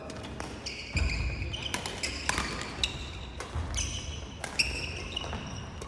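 Badminton play on a wooden gym floor: several sharp racket-on-shuttlecock hits, high rubber-sole squeaks and footfalls.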